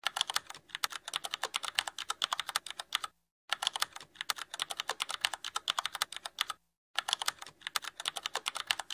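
Computer keyboard typing sound effect: a fast run of key clicks, stopping for a moment twice.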